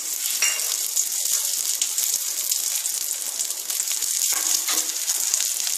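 Hot ghee sizzling with a fine, steady crackle as cashew pieces and raisins fry in a steel kadai.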